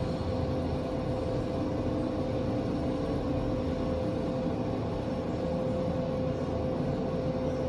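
KONE passenger elevator car travelling between floors with the doors shut: a steady low rumble and a constant whine-like hum heard from inside the car.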